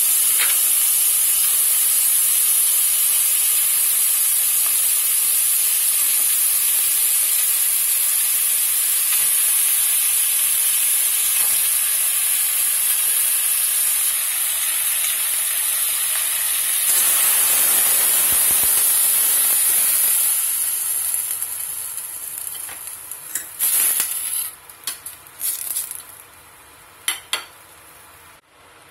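Pork ribs with ginger and spring onion sizzling as they fry in a stainless steel pot: a loud, steady hiss that swells briefly about seventeen seconds in and fades out a few seconds later. A few sharp knocks follow near the end.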